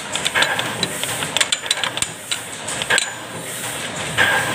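Scattered small metallic clicks and light knocks of the dampening roller's end fittings on a Heidelberg GTO offset press being handled by hand as the roller is worked loose from its seat, thinning out about three seconds in.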